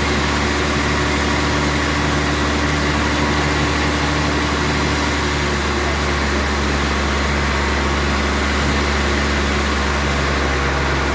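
Sawmill machinery running steadily: an even, loud mechanical drone with a strong low hum and no breaks or sharp strikes.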